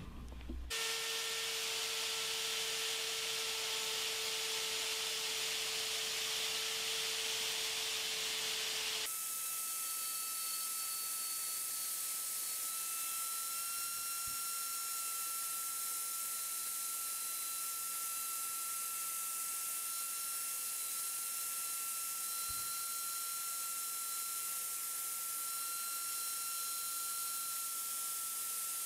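Handheld wood router milling a hole to size in birch plywood, with a shop vacuum drawing the chips away through the pilot hole: a steady whine over a hiss. About nine seconds in, the whine jumps to a higher pitch.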